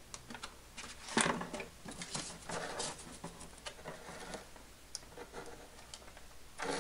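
Hands handling foam model-airplane parts: a few short rustling scrapes and small clicks as a wheel fairing is held and pressed into place, the loudest a little over a second in and again near the end.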